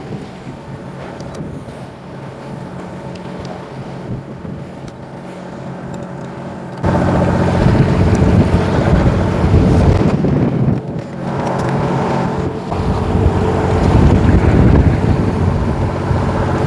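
Steady engine hum of a fishing boat, with wind noise on the microphone. About seven seconds in, the sound jumps suddenly louder and stays loud.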